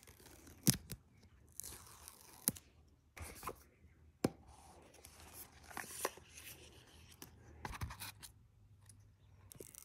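An iPhone box being opened by hand: paper tearing, cardboard and paper packaging rustling and scraping, and several sharp clicks and taps.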